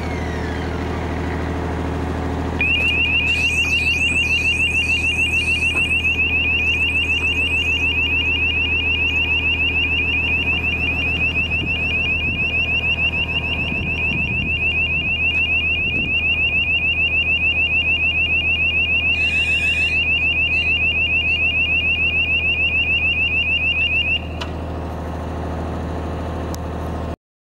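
Diesel generator of an SMC TL-90 mobile lighting tower running steadily. About two and a half seconds in, a loud, rapidly pulsing high-pitched warning beeper starts and sounds for about twenty seconds while the telescopic mast is lowered, then stops, leaving the engine running.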